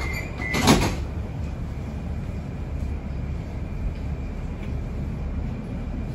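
Moscow metro train running, heard from inside the carriage: a steady low rumble, with one short loud clunk less than a second in.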